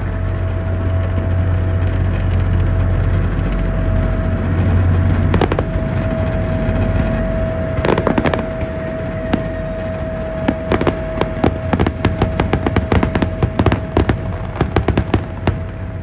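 Boat engine running with a steady low hum and a thin constant whine. From about eight seconds in, a run of sharp crackling pops grows denser, several a second.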